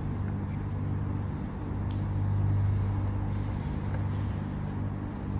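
Steady low electrical mains hum with its evenly spaced overtones, with a single faint click about two seconds in.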